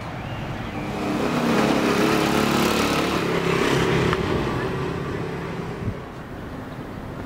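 A motorbike passing close by, its engine growing louder over the first couple of seconds, loudest around the middle, then fading away.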